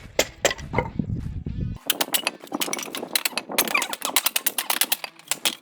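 Rapid, irregular clatter and knocking of wooden pallet boards, several sharp knocks a second, as the pallet wood is broken up and handled for firewood.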